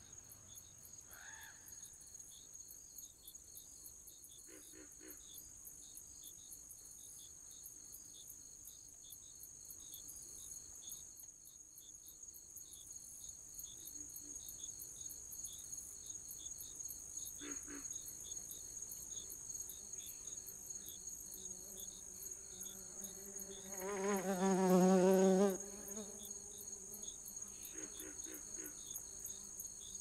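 Jungle ambience: a steady, high-pitched chorus of insects chirring in fast, regular pulses. Short animal calls break in now and then, and the loudest is a wavering call of about a second and a half, some three-quarters of the way through.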